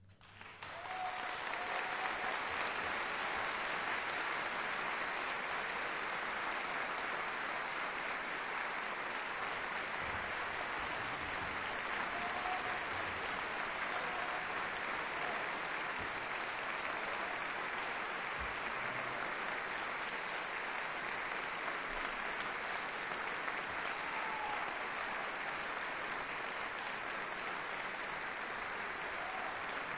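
Concert-hall audience applauding at the end of an orchestral performance, the clapping swelling up within the first second and then holding steady.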